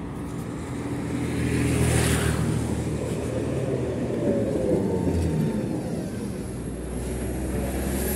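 BKM 60102 tram pulling into a stop and coming to a halt: rumbling on the rails with a steady low drive hum, a brief whine that rises and falls about halfway through as it slows, then a lower steady hum as it stands.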